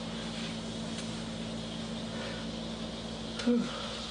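Steady low electrical hum over room noise, with a sharp click and a brief snatch of voice about three and a half seconds in.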